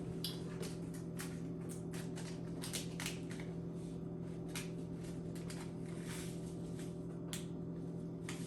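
Irregular crinkling and clicking of a plastic candy packet being handled and opened, over a steady low hum.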